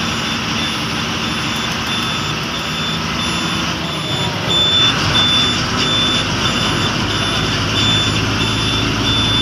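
Bus engine running steadily under a high-pitched electronic beep that pulses on and off in quick, even repeats.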